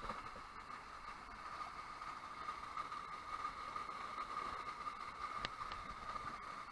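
A small rocky creek running over low cascades, a steady rushing with a narrow hiss in it; a couple of faint ticks about five and a half seconds in.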